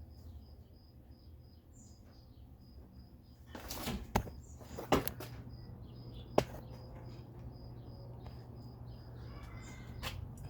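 Encon Premier ceiling fan running on high speed: a steady low motor hum with a faint high chirp or tick repeating about three times a second. A few loud sharp clicks come around the middle.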